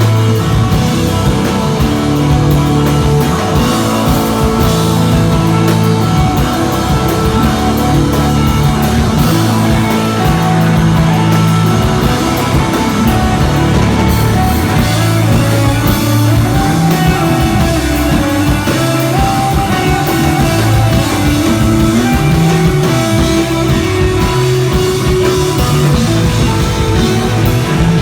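A live desert-rock trio playing: droning, spacey electric guitar over held electric bass notes that change every second or two, with drums and cymbals. The playing stays steady and loud throughout.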